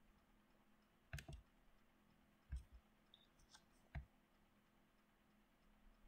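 Several faint, scattered computer mouse clicks, two pairs and then a single click, over a faint steady low hum.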